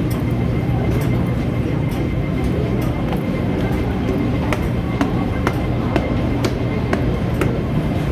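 Footsteps climbing stone stairs, each step a short sharp click, over the steady low rumble and hum of an underground metro station.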